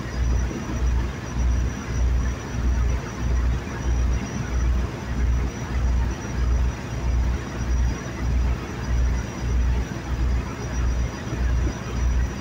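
Boat engine running, with a steady low thump about three times a second.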